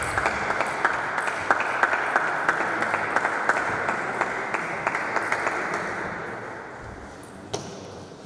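A small group of spectators clapping, with single claps heard through it, dying away over about six seconds. One sharp knock near the end.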